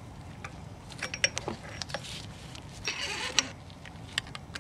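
Pliers and a metal rod working on the cotter pin in the axle nut of an MGB rear hub: a run of small metal clicks, then a short scrape ending in a sharp click, and one more click near the end.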